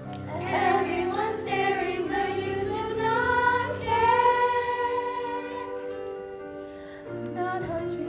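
A young stage cast singing a show tune together in unison over instrumental accompaniment, holding long notes. The voices ease off briefly, then a new phrase comes in near the end.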